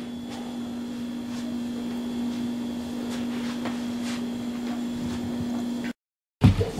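Steady hiss of a television tuned to static, over a steady low hum, with a few faint clicks; it cuts off abruptly near the end.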